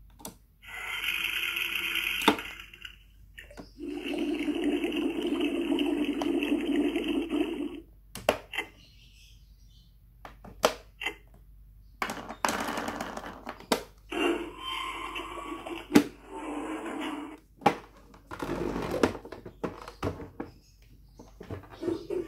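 Fisher-Price Laugh & Learn Learning Kitchen toy playing a series of electronic sound clips through its small speaker, each a second to a few seconds long, as its faucet lever and clock button are pressed. Sharp plastic clicks and knocks from the buttons and handling come between the clips.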